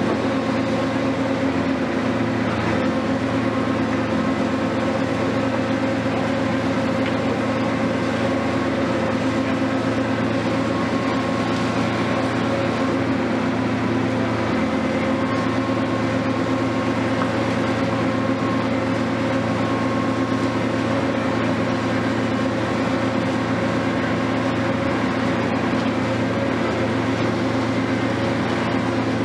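Diesel engine of a Hitachi 470 long-reach demolition excavator running steadily, a constant drone with an even hum.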